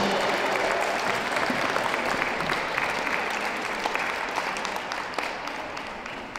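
Audience applauding, slowly dying away.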